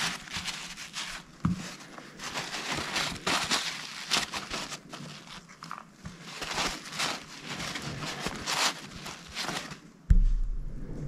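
Paper towel rustling and crinkling in the hands as small metal parts are rubbed and patted dry, in a string of short irregular scrunches. A sudden low thump comes about ten seconds in.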